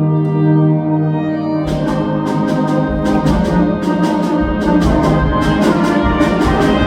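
Concert band playing: a held brass chord, then about a second and a half in the full band comes in with drums and cymbals striking a steady rhythm.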